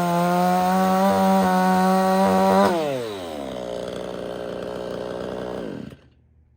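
A 58cc two-stroke chainsaw runs at full throttle, cutting through a red oak log. About two and a half seconds in, the throttle is released and the revs fall to a steady idle. Near the end the engine cuts off abruptly.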